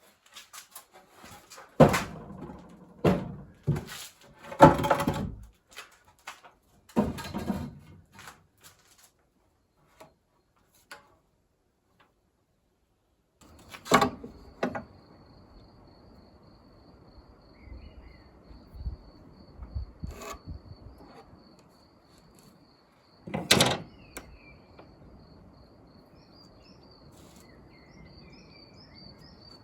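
A series of knocks and thuds, the heaviest in the first few seconds, from wooden boards being handled during woodwork. After a quiet gap comes a faint, steady, evenly pulsed high chirping like a cricket, broken by three more knocks.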